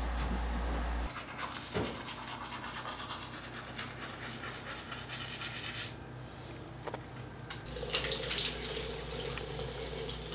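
Teeth being brushed with a manual toothbrush, the bristles scrubbing in quick strokes. Near the end comes a louder stretch of running water and splashing at a bathroom sink.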